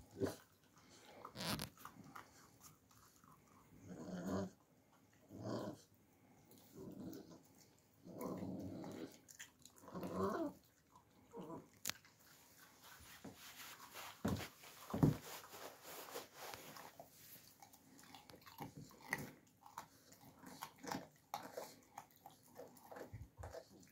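Alabai puppy chewing and gnawing raw meat: repeated wet chewing clicks and crunches, with a few short vocal sounds from the puppy in the first half and one sharp loud snap about fifteen seconds in.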